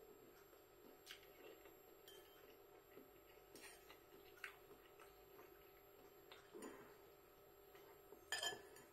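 Near silence with a faint steady hum. A few faint, irregular clicks of a metal fork against a glass bowl as noodles are twirled up, then a short cluster of clinks near the end.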